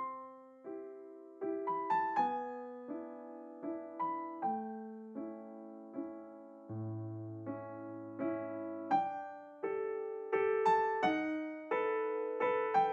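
Background music: a soft keyboard melody of single struck notes, each fading away, with a low bass note held for about two seconds in the middle.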